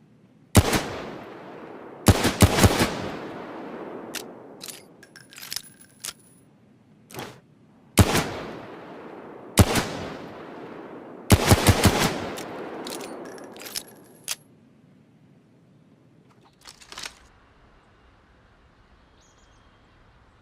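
Smith & Wesson Model 3 revolver firing: single shots and two quick strings of several shots, each with a long echoing tail. Quieter clicks and knocks fall between the volleys.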